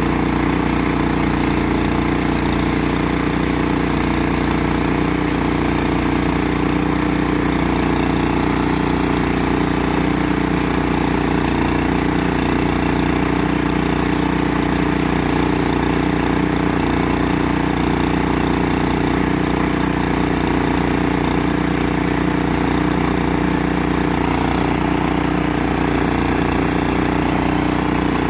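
Engine running steadily at constant speed, an even drone with a strong steady tone and rapid low pulsing that does not change.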